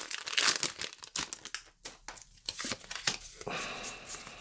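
A foil Pokémon booster pack wrapper crinkling as it is torn open: a run of irregular sharp crackles, loudest in the first second.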